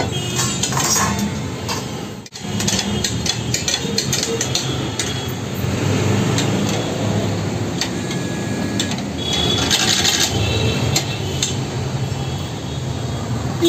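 Repeated metallic clinks and knocks from a Turkish ice cream vendor's long metal rod striking and scraping the steel tubs and lids as he stirs and works the stretchy ice cream, over a steady low background hum.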